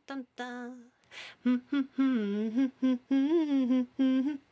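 A person's voice humming a wavering, wordless tune in short choppy notes, with an audible breath about a second in; the notes grow louder from about a second and a half on.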